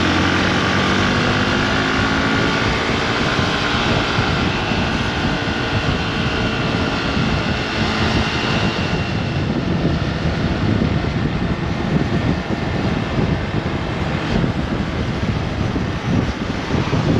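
Motorcycle riding along, likely the rider's Hero Xpulse 200 4V single-cylinder, with its engine note holding fairly steady through the first half. The second half is mostly wind rush over the microphone.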